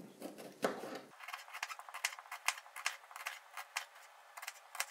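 Kitchen knife cutting through an onion on a plastic cutting board: a run of light, quick ticks as the blade slices down and taps the board, several a second.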